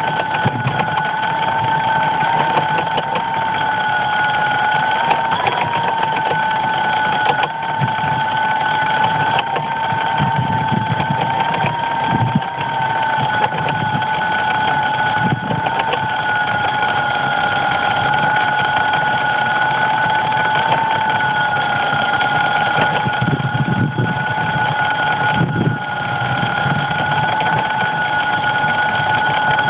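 Steady, high electrical whine in two tones from the crashed DJI Phantom drone lying in the grass, with no let-up; a lower rumble comes and goes underneath.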